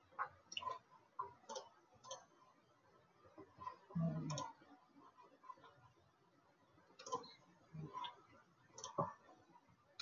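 Faint, scattered clicks of a computer mouse, about a dozen spread unevenly, with a brief low sound about four seconds in.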